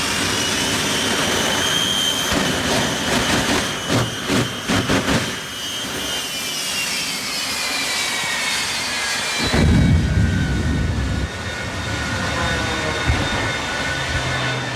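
Jet aircraft engine passing, its whine slowly falling in pitch, with a loud low rumble starting about ten seconds in.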